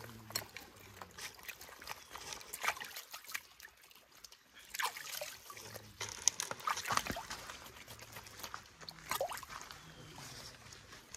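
Shallow stream water splashing and trickling as raw mutton is dipped and rubbed clean by hand in it, with irregular small splashes that are busiest in the middle.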